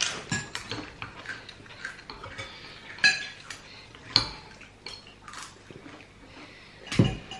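Metal spoon and fork clinking and scraping against a ceramic soup bowl while eating, a series of light sharp clinks, some ringing briefly. A heavier knock comes about seven seconds in.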